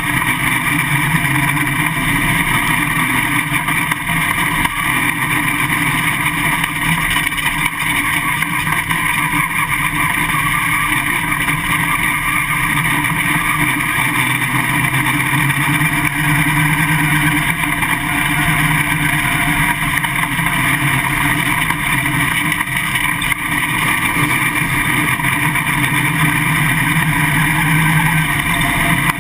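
Winged dirt late model race car's V8 engine running steadily at low, even revs, heard from the in-car camera in the cockpit.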